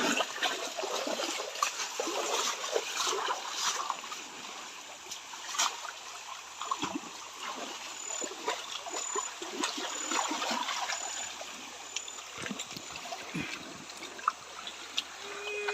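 Water splashing and trickling irregularly as a gold pan is dipped and swirled in a shallow stream, washing gravel to pan for gold.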